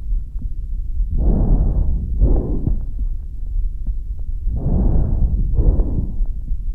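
Lung breath sounds heard through a stethoscope on the chest: two breaths, each a rushing inhalation followed at once by an exhalation. The first comes about a second in, the second about four and a half seconds in, over a steady low rumble.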